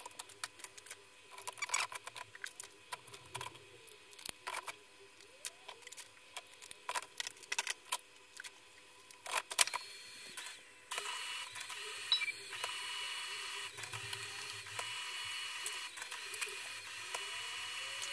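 Sharp plastic clicks and knocks as toner cartridges are pulled from and pushed into the drum unit tray of a Brother MFC-9140CDN colour laser printer. About 11 seconds in, the printer starts its warm-up cycle after the cover is closed: a steady mechanical running sound with a high hum, broken by a few more clicks.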